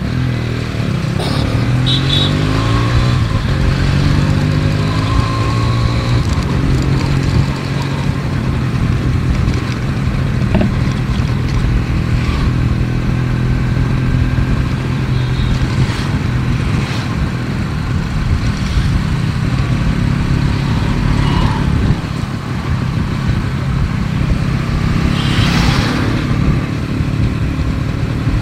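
Yamaha RX 135's two-stroke single-cylinder engine running under way as the motorcycle is ridden, its pitch climbing over the first few seconds and then holding fairly steady.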